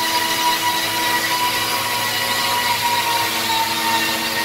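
Steady whirring drone of running machinery, several held tones over an even hiss, unchanging throughout.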